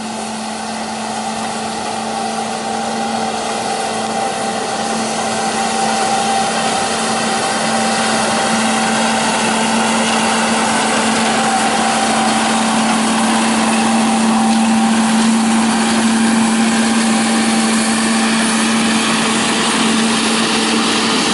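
Snowdon Mountain Railway diesel locomotive No. 11 running steadily as it pushes its passenger coach uphill on the rack line, the engine note growing louder as it draws near.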